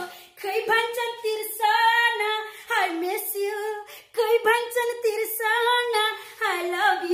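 A woman singing a Nepali song unaccompanied, in a fairly high voice: held, wavering notes in phrases with short breaks between them.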